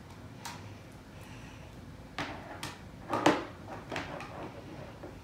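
A plastic action figure being handled: a handful of light clicks and knocks, the loudest about three seconds in.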